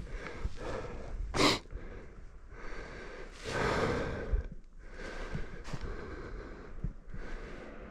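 A tired person breathing hard close to the microphone: a sharp breath about a second and a half in, a longer exhale in the middle, and another short breath later.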